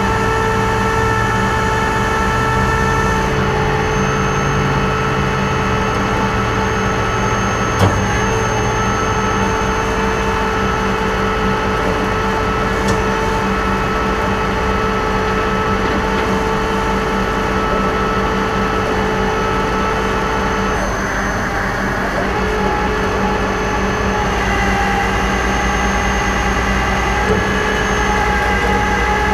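Rollback tow truck's engine running steadily with a hydraulic whine as it powers the tilting bed and winch. The pitch of the hum shifts a few times, with a few sharp clicks, the loudest about eight seconds in.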